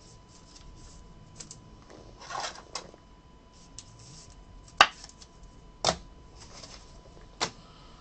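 Trading card slid into a rigid clear plastic top loader: a short plastic scrape and rustle about two seconds in, then three sharp plastic clicks and taps as the holder is handled and set down.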